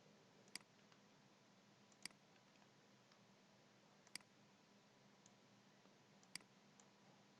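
Computer mouse clicks, four sharp single clicks about two seconds apart with a few fainter ticks between, over otherwise near-silent room tone.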